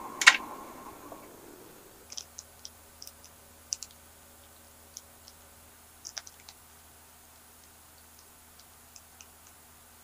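A fading hiss from the pan with one sharp click about a third of a second in. Then scattered light clicks and crinkles from a thin plastic food bag of blueberries being handled.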